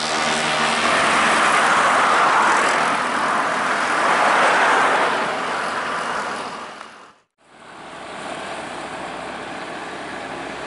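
Road traffic passing close by: a large bus and cars going past with loud tyre and engine rush that swells twice. It breaks off suddenly about seven seconds in, giving way to quieter, steadier traffic noise.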